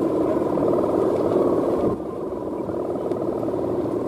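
Balinese bebean kite's bow hummer (guangan) droning steadily in the wind, a buzzing, pulsing hum that dips a little in loudness about halfway through.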